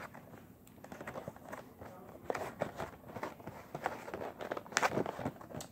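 Hands picking and tugging at a sealed plastic toy box: irregular crinkles, taps and clicks of the packaging, with a sharper click near the end. The seal is holding and the box will not open by hand.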